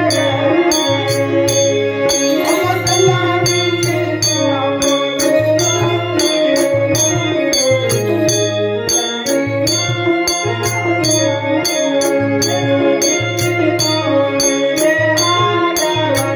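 Music: a melody that moves in pitch over a low pulsing bass and a steady beat of sharp percussion strokes, about two to three a second.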